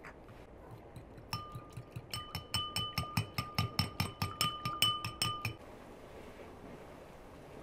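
A fork beating egg in a small ceramic bowl: rapid clinks of metal on porcelain, about five a second, each ringing with the bowl's tone. It starts a little over a second in and stops about five and a half seconds in.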